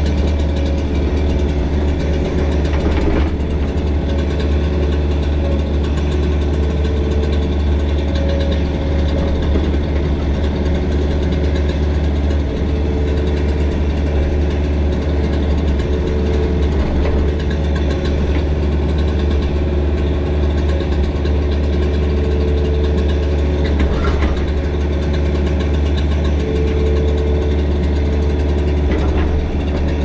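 Mini excavator's diesel engine running steadily under work, with a few faint knocks and scrapes from the machine working the concrete.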